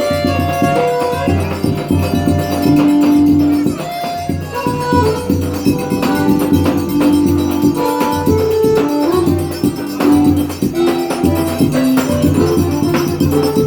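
Forró music: a melody of held notes stepping up and down over a steady bass, with shaken percussion keeping a continuous rhythm.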